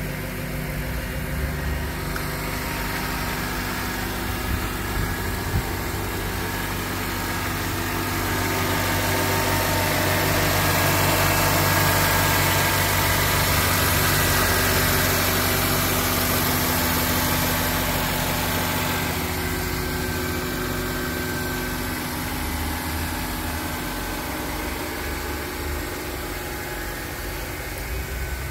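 2003 Honda Accord's 2.4-litre i-VTEC DOHC four-cylinder engine idling steadily, growing gradually louder toward the middle and fading again.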